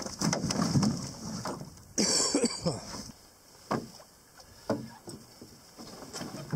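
A heavy pack set down into a canoe with thumps and rustling, then paddle strokes and knocks in the water about once a second as the canoe is worked along.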